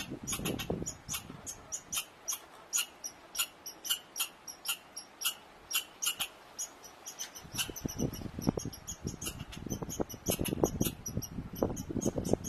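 American red squirrel giving a long run of short, sharp, high chirps, about three to five a second, the repeated alarm chatter of a red squirrel. About halfway through, a low rumble comes in under the calls.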